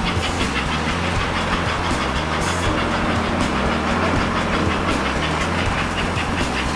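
American Flyer S-gauge toy train running along the track toward the crossing: a steady rumble and clatter over a low hum.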